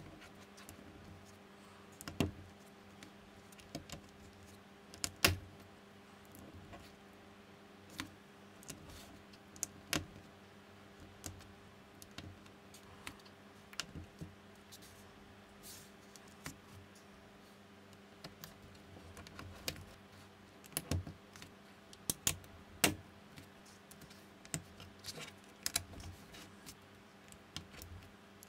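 Plastic building bricks clicking and snapping together as fingers press them onto plates, in irregular clicks with a few sharper snaps, over a faint steady hum.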